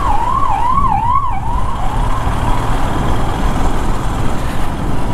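An emergency-vehicle siren warbling quickly up and down, about twice a second, fading away about two seconds in. Under it is the steady low running of a Royal Enfield Himalayan's single-cylinder engine with road noise.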